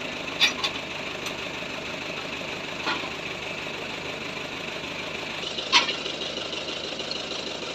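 An engine running steadily at idle, with a few sharp knocks now and then.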